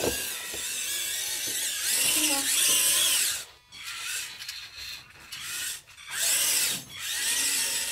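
Small electric motors and gearboxes of a radio-controlled 1/16 Bruder CAT compact loader whining as it drives. The pitch rises and falls with speed, and the whine stops and starts again three times.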